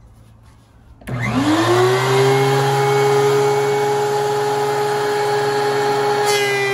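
DeWalt DW735 thickness planer switched on about a second in: the motor and cutter head spin up with a rising whine, then settle into a loud, steady whine at full speed.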